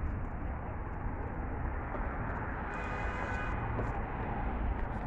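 Steady street traffic rumble from passing vehicles, with a brief faint higher engine tone about three seconds in.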